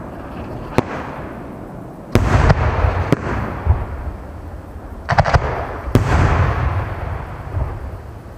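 Fireworks display: aerial shells going off with sharp bangs, the biggest about two seconds in and again around five to six seconds in, where a quick run of pops comes together. A low rumble lingers after the bangs.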